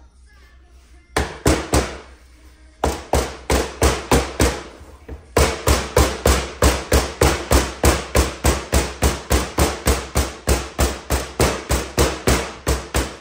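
Repeated hammer blows driving a new wear ring into a Sea-Doo 787 jet pump housing: a few strikes, a short pause, then a steady run of about four blows a second.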